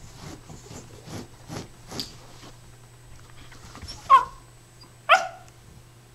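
A small terrier scraping its paws under a wooden cabinet at a ball stuck out of reach: a quick run of scrapes, then two sharp yips about a second apart, each falling in pitch.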